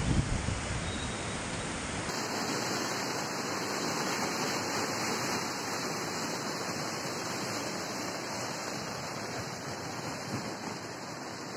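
Muddy floodwater rushing in a steady, even noise of moving water. About two seconds in the sound changes abruptly, as a different recording of the torrent cuts in.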